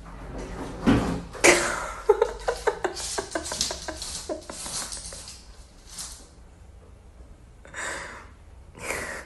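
Wooden kitchen cupboard doors and a drawer knocking and rattling as a cat paws and pulls at them: a couple of sharp knocks about a second in, then a quick run of short clacks, and two brief scraping bursts near the end.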